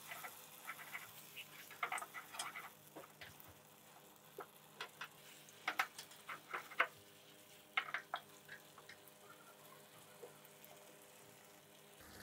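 A spatula stirring beef and vegetables through thick sauce in a non-stick frying pan: quiet, irregular clicks and scrapes against the pan over a faint sizzle of the gravy cooking.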